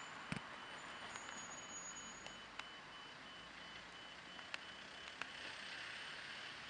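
A rapid, even series of short high electronic beeps over faint street noise, with a few sharp clicks.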